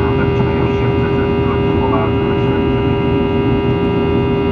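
Boeing 737-800's CFM56-7B turbofan engines heard from inside the cabin: a steady drone with a whine of many fixed tones, one strong low hum among them, over a low rumble.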